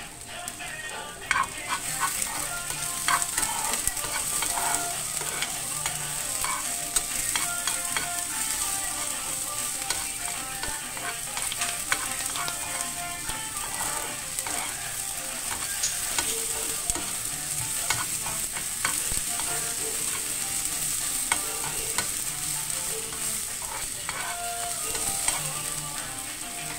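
Sliced onion sizzling in a nonstick frying pan, a steady hiss that starts about a second and a half in, with the clicks and scrapes of a metal spoon stirring against the pan.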